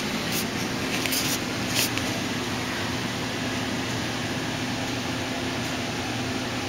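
A steady low mechanical hum, like a room fan or air-conditioning unit, with a few faint clicks in the first two seconds.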